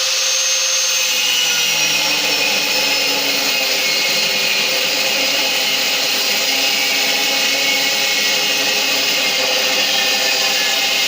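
Electric angle grinder running continuously on steel: a steady high whine over a harsh grinding hiss, its pitch sagging slightly about a second in as it bears down on the work.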